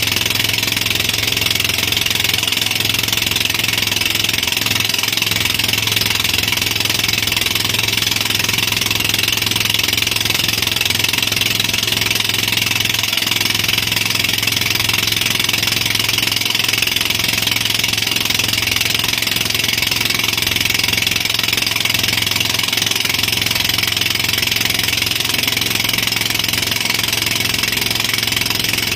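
Tow boat's engine running steadily at speed, over a steady hiss of rushing water and wind.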